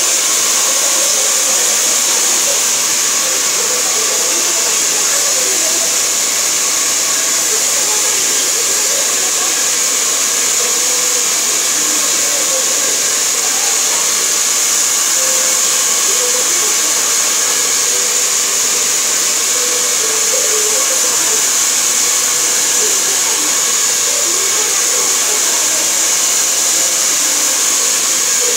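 Hand-held hair dryer blowing a man's freshly cut hair: a loud, constant rush of air with a steady high hiss, unchanged throughout.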